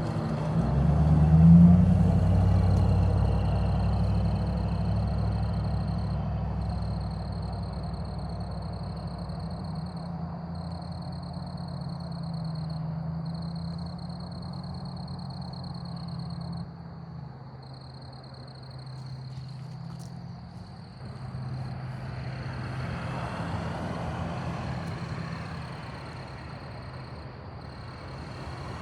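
A motor vehicle passing close by with a low engine rumble, loudest about a second and a half in, then fading away over several seconds. A second, fainter vehicle passes about three quarters of the way through.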